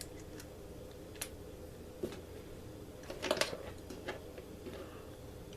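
A few light clicks and taps of small stainless screws and hardware being picked up and set into mounting holes by hand, the loudest cluster a little past the middle.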